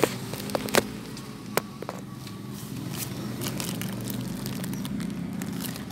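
Handling noise as the phone is set down: a few sharp clicks and knocks in the first two seconds, then a low steady background rumble.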